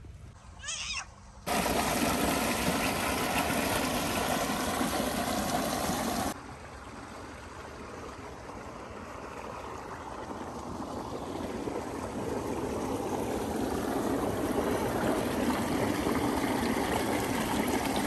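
Water running and splashing along a narrow earthen irrigation channel. It starts suddenly about a second and a half in, drops abruptly to a quieter flow about six seconds in, then slowly grows louder again.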